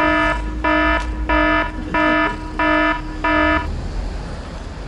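Electronic alarm-buzzer sound effect: six identical buzzy beeps, about one and a half a second, stopping about three and a half seconds in.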